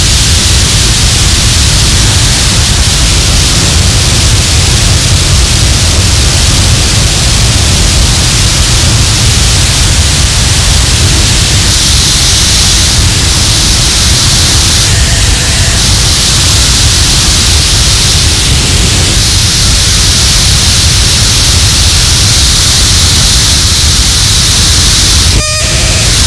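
Harsh noise music: a loud, dense wall of distorted static over a heavy low rumble. The high hiss changes texture several times, and the wall briefly thins near the end, letting a few high whistling tones through.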